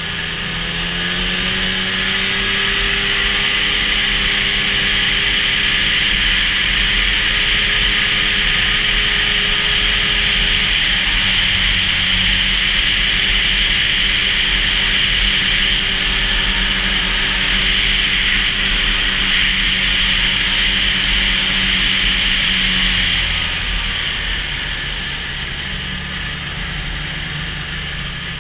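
Snowmobile engine and track running under way: the engine picks up about a second in, holds a steady pitch at cruising speed, and eases off near the end.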